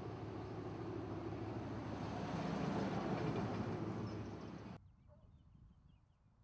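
Street traffic: cars and a pickup truck driving past with engine and tyre noise, swelling as a vehicle passes. It cuts off abruptly about three-quarters of the way through, leaving quiet outdoor ambience with faint high chirps.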